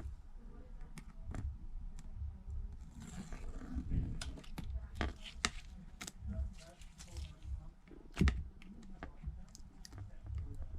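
Fingernail and tool clicks and taps while working the protective film off a replacement iPad mini 2 screen, with a soft peeling rustle about three seconds in and a louder knock about eight seconds in.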